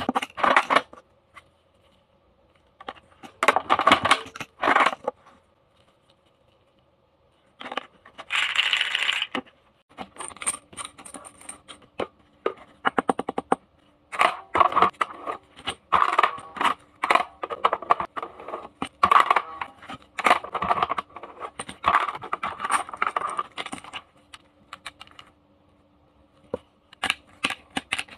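Plastic toy vending machines being played with: plastic toy coins dropping in and toy drinks and baskets clattering, in irregular bursts of clicks and rattles with short pauses between. A faint steady tone runs under much of it.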